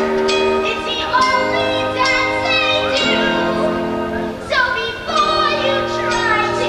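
Music with singing voices: held sung notes over instrumental accompaniment.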